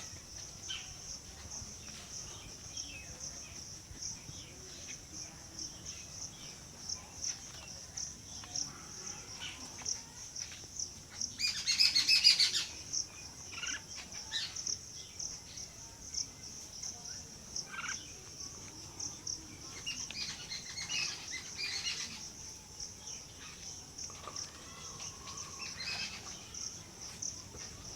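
Steady, high-pitched drone of insects, crickets or cicadas, with scattered bird chirps over it. A louder burst of rapid chirping comes about twelve seconds in, and a smaller cluster about twenty seconds in.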